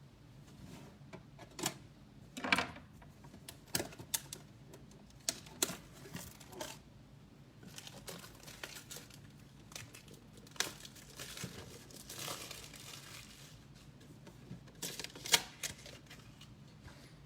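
Plastic packaging crinkling and tearing as a hockey card tin is unwrapped and opened, with scattered sharp clicks and taps from handling the tin and card packs. The loudest clicks come about two and a half seconds in and again near the end.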